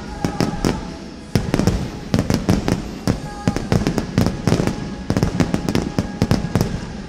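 Fireworks display with shells bursting in quick, dense volleys of sharp bangs and crackle. There is a short lull about a second in, and the bursts stop just before the end. Faint music runs underneath.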